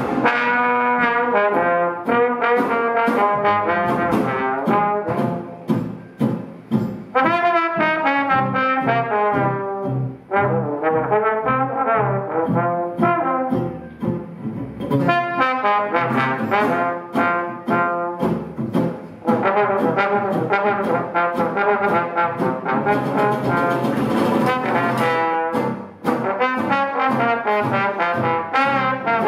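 Small jazz band playing, with the trombone carrying the melody in phrases separated by short breaks, over an archtop guitar and a plucked upright bass.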